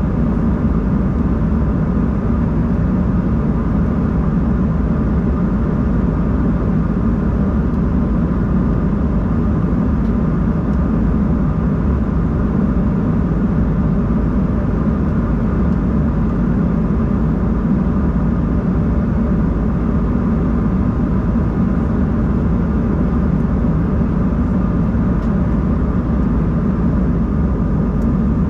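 Steady cabin drone of an Embraer 190-E2 airliner in flight: engine and airflow noise, loud and unchanging, mostly low with a faint steady hum higher up.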